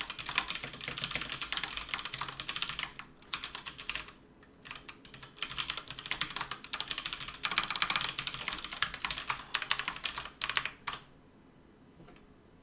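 Fast typing on a computer keyboard: rapid runs of key clicks with a couple of short pauses, stopping near the end.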